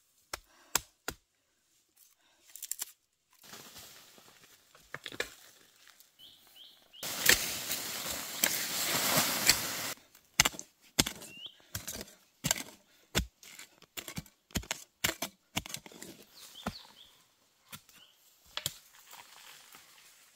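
Metal digging bar striking and prying into soil while bamboo shoots are dug out, a run of sharp knocks and dull thuds. From about seven seconds in comes three seconds of loud scraping and rustling of loose soil, the loudest part.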